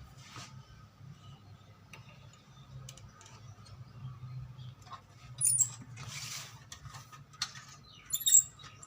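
Small clicks, scrapes and rustles of hands handling an electric iron's plug and cord while hooking it up to a series-lamp test board, with a low steady hum underneath. Sharper clicks stand out about five and a half and eight seconds in.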